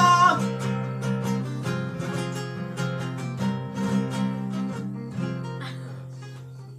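Acoustic guitar playing an instrumental passage between verses of a Neapolitan song: picked and strummed chords over steady bass notes, growing gradually quieter toward the end. A held sung note cuts off right at the start.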